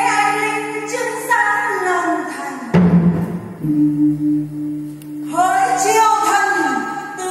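Chèo (Vietnamese traditional folk opera) music from a live stage performance: a voice sings a melodic line over steady low held tones, a deep drum stroke sounds about three seconds in, and the singing returns near the end.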